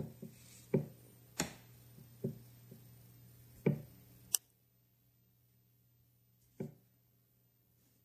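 Light knocks and taps from a hand handling a paper sheet on a table, about six in the first half and one more late on, with a sharp click just past the middle. A steady low hum underneath stops abruptly right after the click.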